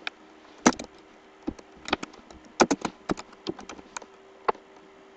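Typing on a computer keyboard: a quick, uneven run of keystroke clicks as a short phrase is typed.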